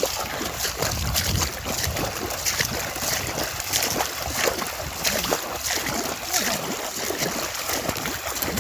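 Rapid, irregular splashing of feet running and wading through shallow water, with a continuous rush of disturbed water.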